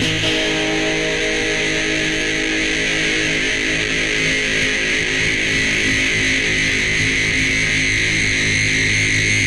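A rock song's distorted electric guitar chord, held and ringing on steadily with no drumbeat.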